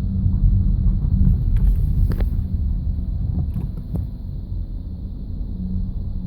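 Low rumble with a steady low-pitched groan from the front end of a 2009 Audi A3 Sportback 2.0 TDI. The groan fades after the start and comes back near the end, and a few sharp clicks fall about two and three and a half seconds in. It is a fault that appears near full steering lock and stops when the clutch is pressed, and it has not been cured by a new steering rack, wheel bearing, discs or pads.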